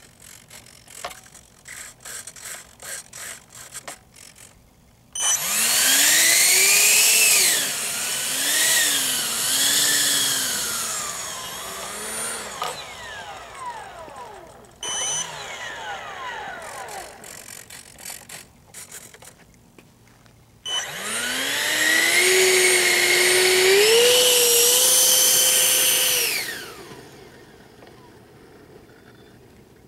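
Light clicking for the first few seconds. Then a 65mm electric ducted fan on an RC jet spools up with a loud rising whine, its pitch going up and down with the throttle before it cuts back. A short blip follows, then a second run climbs to a steady high whine and spools down near the end.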